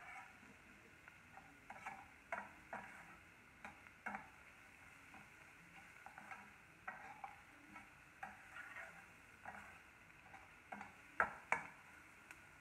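A perforated metal spoon stirring and scraping in a stainless steel pan, with irregular clinks and scrapes, over a faint steady sizzle of chopped onions and garlic frying in oil. Two sharper clanks of the spoon on the pan come near the end.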